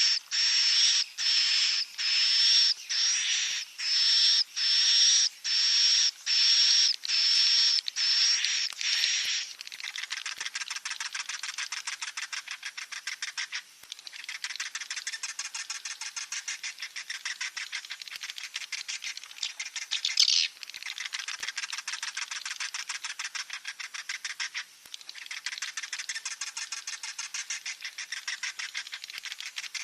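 Swiftlet chicks calling: about a dozen sharp, high calls roughly one every 0.7 seconds, then a fast, buzzing chatter that runs in long stretches with a few brief breaks.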